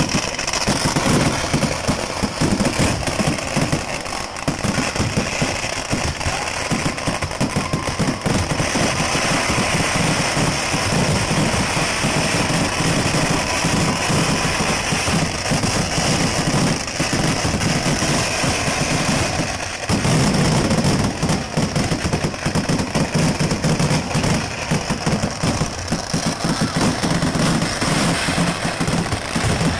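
Vedikettu fireworks barrage: an unbroken run of rapid bangs and crackling from shells bursting overhead and at ground level. It eases for a moment about two-thirds of the way through, then a louder run follows.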